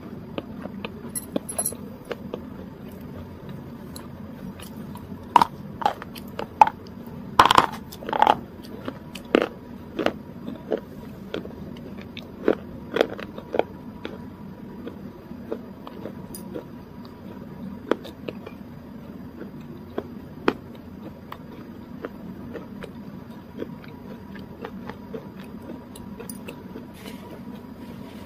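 Close-miked mouth sounds of someone eating: sharp, wet clicks and smacks of chewing and lips, scattered irregularly and busiest in the first half.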